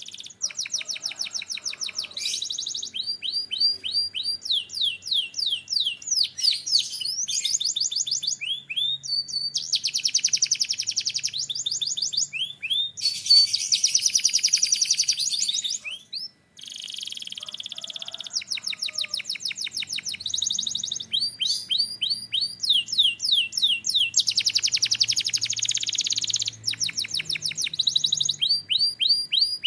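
Canary singing a long run of high-pitched rapid trills and repeated phrases, with a brief pause about sixteen seconds in.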